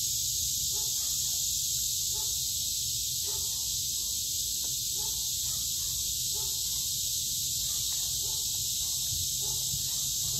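Steady, high-pitched hiss of an insect chorus throughout, over a low steady rumble, with faint irregular soft smacking from two dogs (an Alaskan Malamute and a husky) eating off plates.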